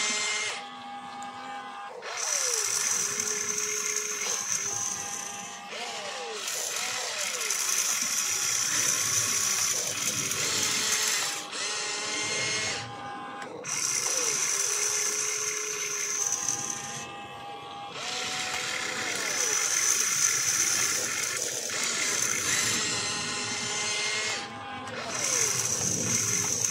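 Radio-controlled excavator's electric motors whining in bursts of a few seconds as the boom, arm and swing are worked, with short pauses between moves and the pitch sliding up and down as the motors speed up and slow.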